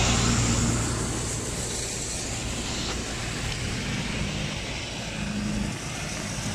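Steady rumble of motor traffic, with a hiss of rain falling.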